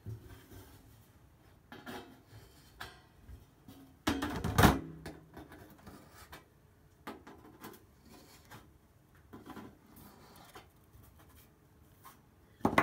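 Handling of a brass cymbal and hand tools on a workbench: scattered light clicks and rubbing, with one loud knock about four seconds in.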